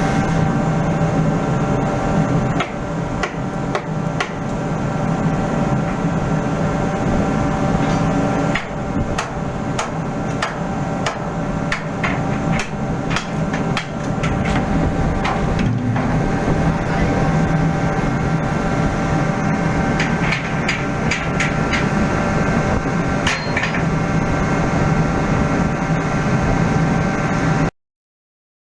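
Hammer striking metal in irregular runs of quick blows over a steady machinery hum, the blows thickest about a third of the way in and again past two thirds. The sound cuts off suddenly just before the end.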